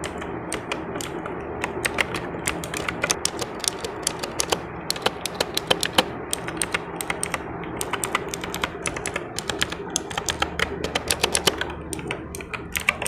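Havit KB856L RGB mechanical keyboard being typed on: a fast, irregular run of key clicks over a steady background.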